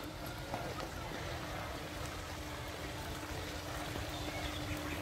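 Outdoor park ambience: a steady low rumble with a faint constant hum, and a faint bird chirp near the end.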